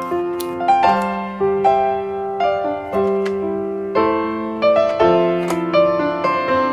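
Background piano music: a melody of held notes over lower notes, changing every second or so.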